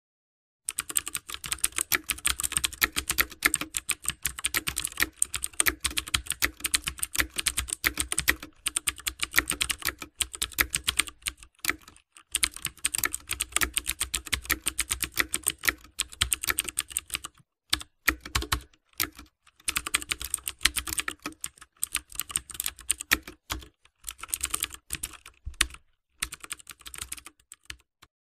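Computer keyboard typing sound effect: rapid, irregular key clicks in long runs broken by short pauses.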